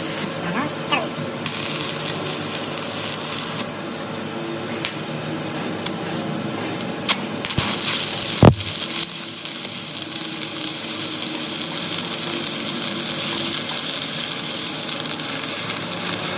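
Metal tools and parts clinking in a workshop, with one sharp, loud knock about eight and a half seconds in.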